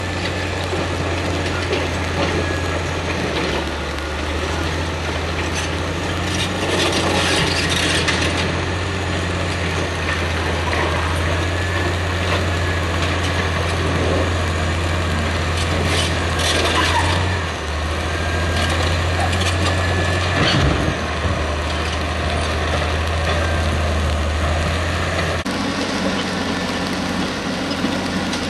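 Caterpillar D6C crawler dozer's diesel engine working steadily, with the clatter of its steel tracks and a few sharp knocks as the blade pushes brush and dirt. The engine note shifts near the end.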